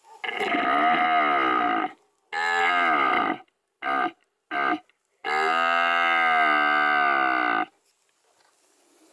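Red deer stag roaring: a long roar, a shorter one, two short grunts, then a long roar near the end.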